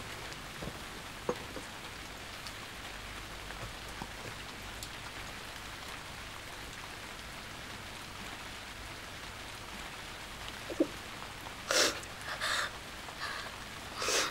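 Steady rain falling, an even hiss. Near the end come a few short hissing sounds.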